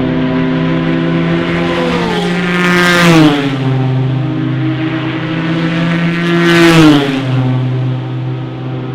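Endurance racing cars passing at speed, twice: each engine's pitch rises to a loud peak and then drops as the car goes by, about three and seven seconds in, over a steady engine note.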